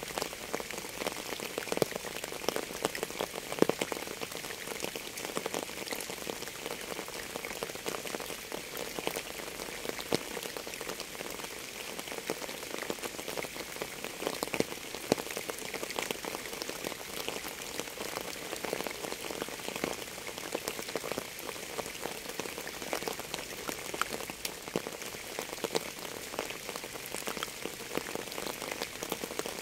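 Steady rain falling on a hard surface, a dense, even stream of individual drop hits with no music.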